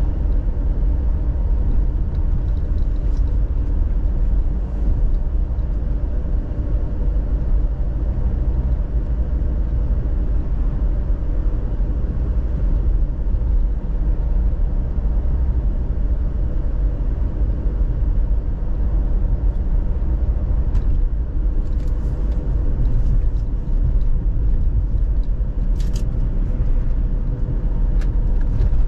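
Car driving along: a steady low rumble of road and engine noise, with a faint steady hum and a few faint ticks near the end.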